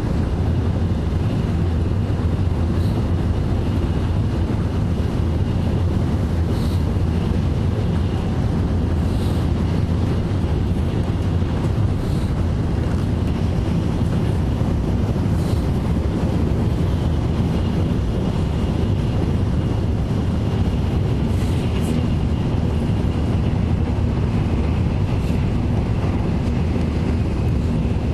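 Cabin noise inside a Shinkansen bullet train running at speed: a steady low rumble of wheels and airflow, with a few faint brief hisses.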